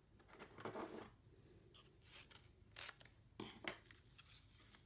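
Faint rustling of a paper strip being picked up and slid across a cutting mat into a paper punch, with a few soft clicks and taps in the second half.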